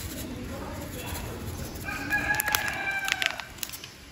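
A bird calling once in the background: one held, pitched call of about a second and a half, starting about two seconds in and dropping slightly at the end. Faint papery crinkles of a spice packet being shaken over the bowl come near the end of the call.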